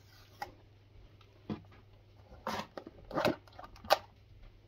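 A cardboard Samsung Galaxy S23 Ultra box being opened: a few short scrapes and taps as the seal is torn and the lid slides off the base, the loudest about three seconds in.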